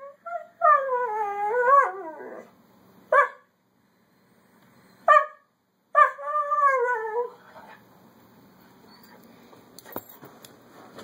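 Brindle dog 'talking' back in complaint: a long wavering howl-like moan about a second in, single sharp barks near three and five seconds, then another wavering moan at about six seconds. The dog is upset.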